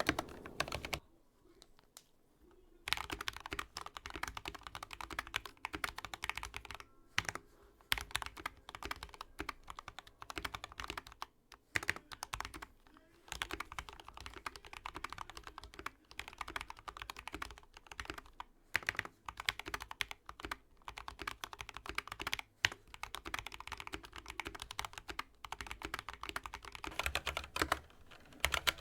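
Typing on a mechanical keyboard with lubed Gateron Yellow linear switches and PBT keycaps: fast runs of keystrokes broken by short pauses, the longest of about two seconds near the start.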